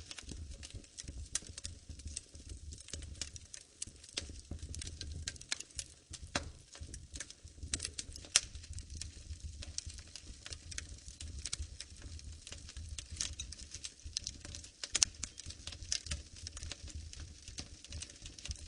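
Wood fire in a fireplace crackling: many small irregular snaps and pops, a few louder ones among them, over a low steady rumble of the flames.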